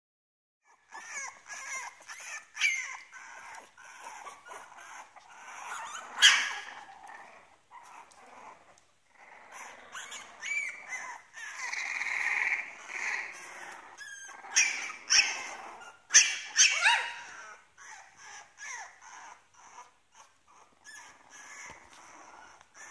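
Two-week-old French bulldog puppies whimpering and squeaking: many short, high-pitched squeals that slide up and down in pitch, with a few louder yelps among them.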